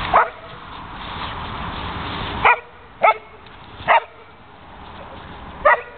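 Poodle barking: five short, high, sharp barks at uneven intervals.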